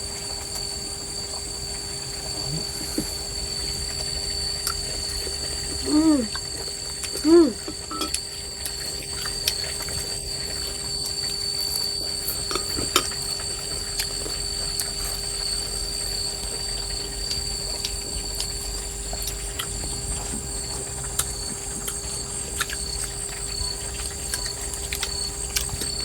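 Scattered light clinks of chopsticks and spoons against bowls during a meal, over a steady high chirring of insects. Two short rising-and-falling calls come about six and seven seconds in.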